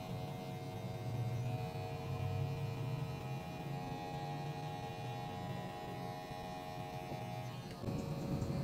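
Wahl electric hair clipper buzzing steadily as it cuts short hair at the nape of the neck. The buzz breaks off briefly near the end and resumes.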